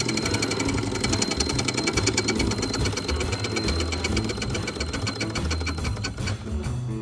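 Alcohol-fired model steam engine running under steam: a fast, even clatter of chuffs and ticks from its cylinder and crank, about ten a second, fading near the end.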